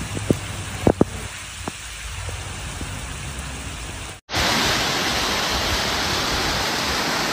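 Steady rain noise over a flooded street, with a few sharp clicks in the first second or two. About four seconds in it cuts to the louder, steady rushing of brown floodwater tearing down a concrete channel.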